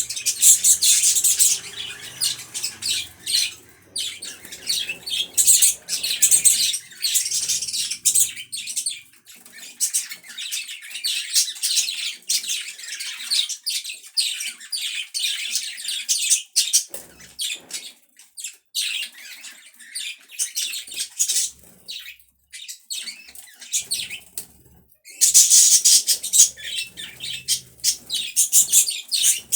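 Pet budgerigars chirping and chattering in a fast, dense warble with squawky calls mixed in, louder near the start and again near the end.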